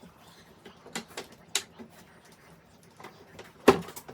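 Scattered knocks and clatter of flat-pack furniture panels and parts being handled while they are counted, the loudest knock near the end.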